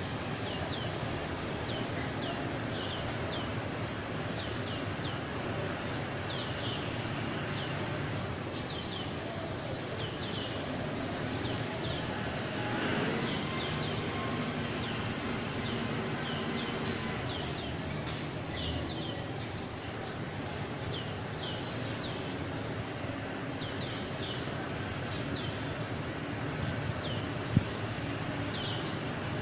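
Steady outdoor background hum with birds giving short, high, falling chirps over and over, with a single sharp click near the end.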